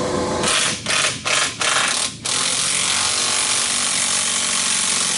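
Pneumatic wrench running in four or five short bursts, then held on for about three seconds while it spins a fastener.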